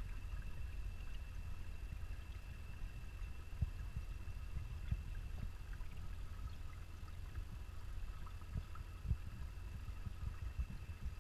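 Underwater ambience in a garden pond, heard through a GoPro's waterproof housing: a steady, muffled low rumble with scattered faint clicks and a thin, steady high tone.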